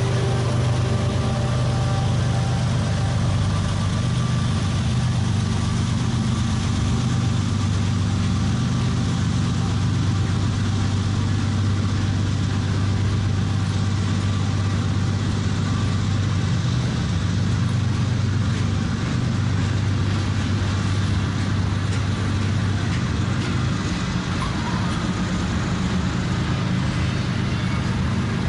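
Freight train cars rolling past close by, a steady low rumble of steel wheels on the rails that keeps on without a break.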